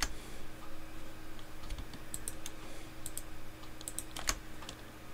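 Computer mouse and keyboard clicks: a few sharp separate clicks, several in quick pairs, with the loudest just after four seconds, over a faint steady low hum.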